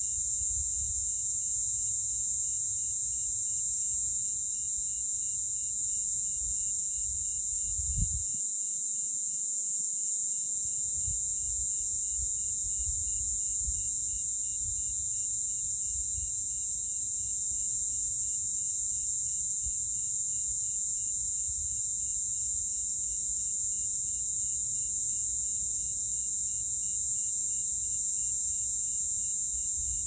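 Cicada chorus: a steady, high-pitched buzz that holds without a break, with a low rumble of wind on the microphone and a soft bump about eight seconds in.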